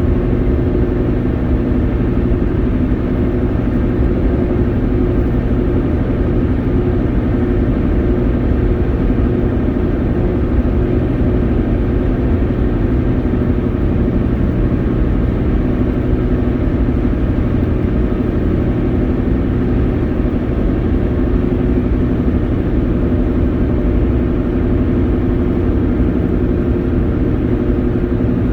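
Steady engine and road drone from a Ford F-150 pickup driving, heard from inside the cab.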